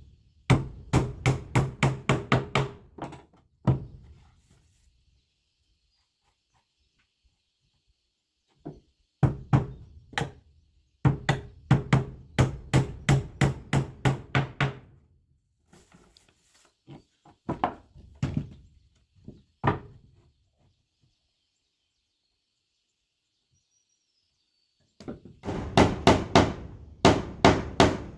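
Hammer blows on wood, struck in quick runs of about three or four a second, in four bursts with quiet gaps between them.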